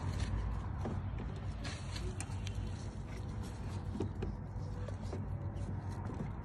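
Scattered light clicks and scrapes of a hand screwdriver turning a Torx screw into a fog light mount, over a steady low hum.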